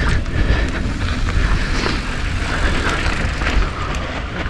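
Mountain bike descending a dirt enduro trail at speed: a steady rush of tyre and wind noise with scattered sharp knocks and rattles from the bike over the bumps.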